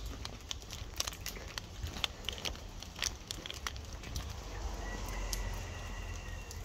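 Crackling, rustling footsteps through wet grass and shredded conifer mulch, with scattered sharp clicks over the first few seconds. A faint high steady tone comes in near the end.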